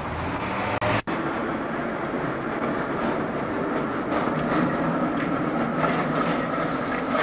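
Basel trams running along street tracks: a steady rumble of wheels on rail with a thin, steady wheel squeal in the second half. The sound drops out for an instant about a second in, where the recording cuts.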